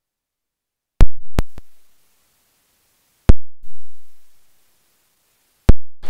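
Intro music stinger of electronic drum hits, each with a booming low tail: a heavy hit about a second in, two quick lighter hits right after, then two more heavy hits about two and a half seconds apart.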